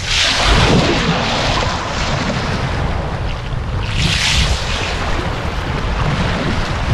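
Sea waves washing over a submerged concrete walkway as the tide rises, water rushing and splashing across it, with surges of splashing near the start and about four seconds in. Strong wind buffets the microphone throughout.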